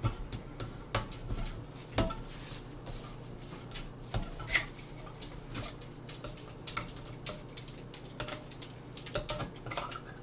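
Tupperware side-cutting can opener worked round the rim of a tin can by hand, with irregular metallic clicks and ticks and a few sharper clicks in the first half.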